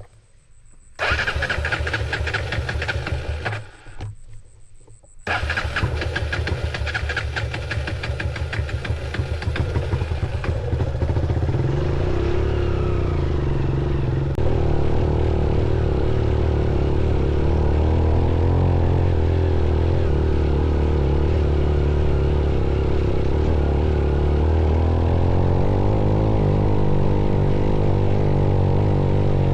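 Motorcycle engine being started: the starter cranks in a burst, stops briefly, cranks again, and the engine catches and settles into a steady idle, its pitch shifting slightly near the end.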